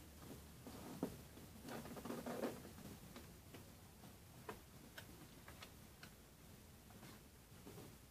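Sheet of 80 g/m² A4 paper being folded by hand: faint rustling and crinkling about two seconds in, then scattered soft ticks as fingers press and crease the folds.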